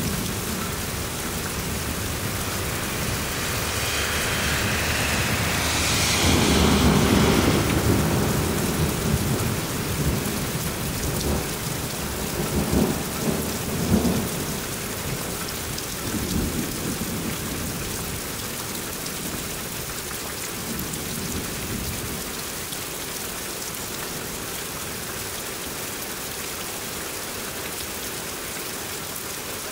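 Heavy rain pouring steadily during a thunderstorm, with thunder rumbling. A loud peal comes about six seconds in and rumbles on for a few seconds, with more rumbles around twelve to sixteen seconds in, then only the rain.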